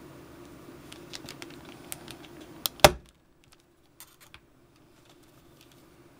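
Rotary leather hole-punch pliers clicking as they punch holes through leather: a run of small clicks, then one loud, sharp snap about three seconds in, followed by a few faint clicks.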